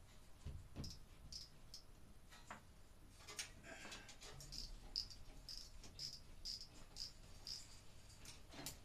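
Faint hand work overhead: a few sharp knocks and clicks, and through the second half a run of short, evenly spaced high chirps, about two a second.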